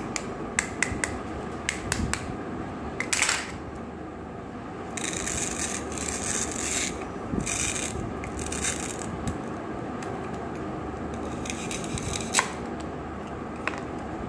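Plastic toy cutting fruit being handled: sharp plastic clicks and taps in the first few seconds, then a few seconds of rasping tearing as the hook-and-loop joined halves of a toy melon are pulled apart with a plastic toy knife, with a few more clicks near the end.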